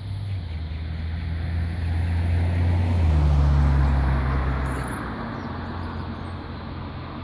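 A road vehicle passing: a low engine hum with tyre and road noise that swells to a peak about three to four seconds in, then fades.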